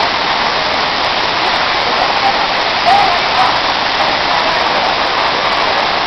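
Waterfall pouring over a rock face into a shallow pool: a loud, steady rush of falling water.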